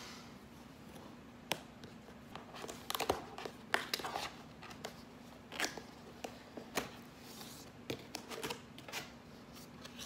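Cardboard box being opened by hand: scattered taps, scrapes and short rustles of the flaps and paper packaging, busiest a few seconds in. A steady low hum runs underneath.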